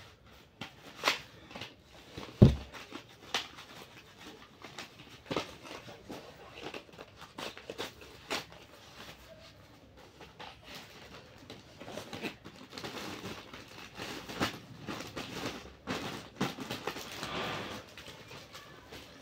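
Plastic packaging being handled: bubble wrap and a plastic bag crinkling and rustling, with scattered clicks and knocks. A sharp knock about two and a half seconds in is the loudest sound, and the crinkling gets denser in the second half.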